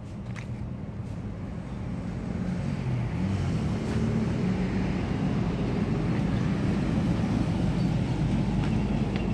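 Vehicle engine rumbling and growing louder, with a low engine note that shifts in pitch.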